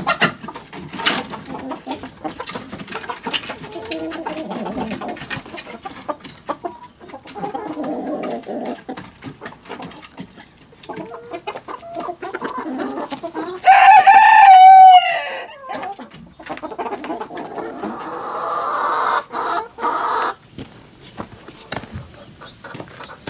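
Mixed backyard flock of chickens, silkies and silver-laced Wyandottes among them, clucking steadily, with many small clicks and scuffs. About fourteen seconds in, a rooster crows once, loudly, and a second, rougher call follows a few seconds later.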